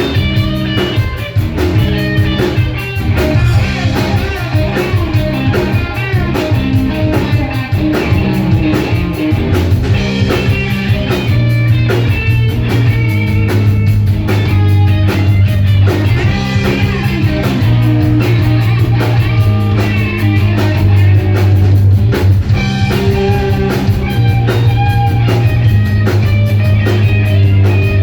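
Rock band playing live: electric guitar over long held bass notes and a drum kit with busy, steady cymbal ticks.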